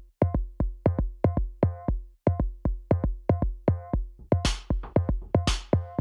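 Electronic background music: a drum-machine beat of about four hits a second under short synth notes, with swelling noise sweeps coming in about four seconds in.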